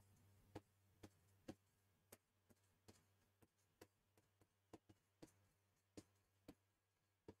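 Faint, irregular taps and clicks of a stylus touching an interactive smartboard screen while writing, a dozen or so spread over several seconds, otherwise near silence.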